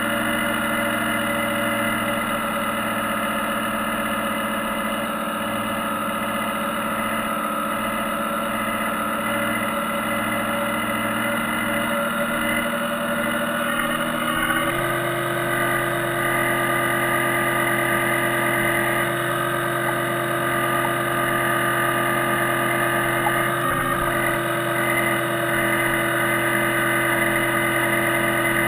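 Steady hum of the RC model trawler's drive motor, picked up through the hull the camera is mounted on. About halfway through it steps up to a higher pitch as the throttle is opened and runs on evenly at the new speed.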